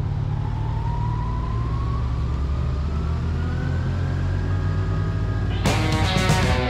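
Motorcycle riding along a city street: steady engine and wind rumble, with a whine that rises slowly and evenly in pitch as the bike picks up speed. Music comes in about a second before the end.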